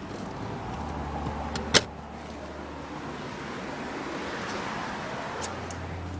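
A car's front seat being slid forward on its rails, with a sharp click of the seat latch about two seconds in.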